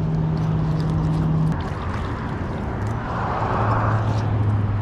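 A steady low engine hum that stops about a second and a half in, then a lower engine hum that starts about three seconds in, over a rushing hiss of background noise.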